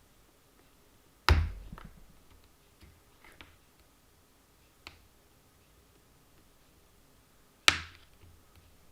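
Two sharp knocks about six seconds apart, with a few lighter clicks between, as a stuck pin is driven out of an RC car's differential outdrive; the pin should float but won't move, which the builder puts down to it being seized or glued in.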